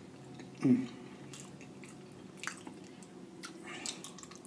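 Close-miked mukbang eating sounds: wet squishes, smacks and clicks from fingers in butter sauce and a chewing mouth. A short low hummed "mm", falling in pitch, comes about a second in.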